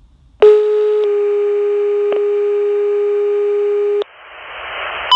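Fire dispatch two-tone alert over a radio scanner: a short tone, then a slightly lower steady tone held for about three seconds. Rising radio hiss follows, and a short high beep comes near the end.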